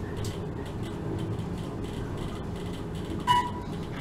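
Glass elevator car climbing fast up a tall atrium: a steady low rumble and hum of the car in motion. A short beep sounds about three seconds in.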